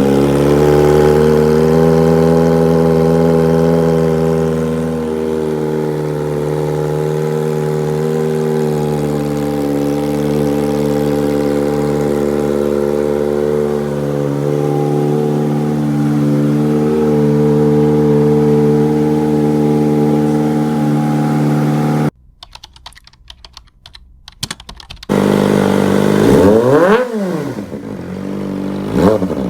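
Kawasaki motorcycle engine idling steadily. After a short break it is revved in quick blips that rise and fall in pitch.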